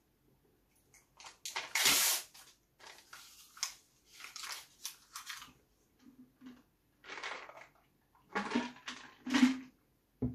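A person biting, tearing and chewing a sheet of printed paper, in noisy crinkling bursts, the loudest about two seconds in, with sips and swallows from a plastic shaker bottle in the middle. A short sharp knock near the end.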